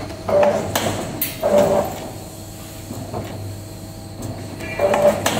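CNC wire bending machine forming steel wire, its bending head moving in short bursts, each with a steady mid-pitched tone, with sharp clicks between them. Two bursts come early, then a quieter stretch, then another near the end.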